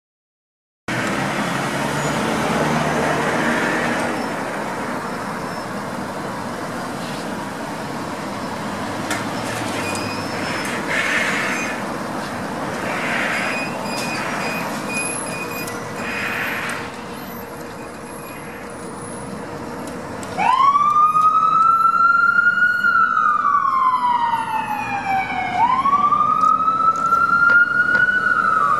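Ambulance pulling out into traffic, its engine and the street noise heard with a few short tones. About 20 seconds in, its electronic siren starts on wail: a quick rise, a slow fall, then a second rise.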